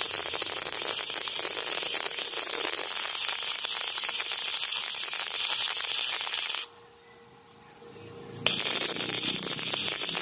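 Electric arc welding on a motorcycle frame's steel side-stand plate: the arc's steady crackling hiss, which stops about six and a half seconds in and strikes up again about two seconds later.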